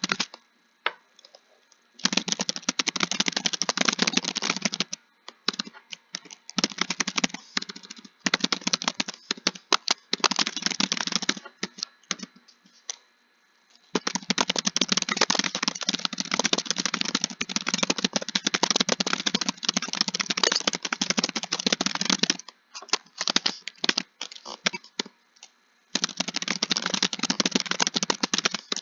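Fast typing on a computer keyboard: runs of rapid keystrokes broken by short pauses, the longest run lasting about eight seconds in the middle.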